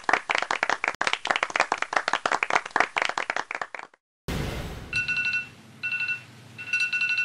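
Crowd applause that cuts off about four seconds in. Shortly after, a smartphone alarm starts beeping: a high electronic tone pulsing on and off three times.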